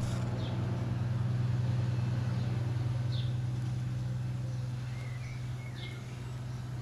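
A steady low machine hum, with a few faint short chirps over it.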